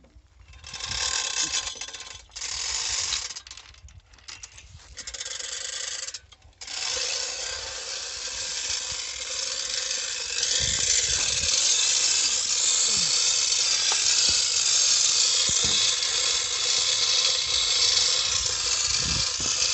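Chain hoist being worked to lift the borewell pipe: its chain clatters through the hoist with ratchet clicking, in stop-start pulls at first, then without a break and louder about halfway through.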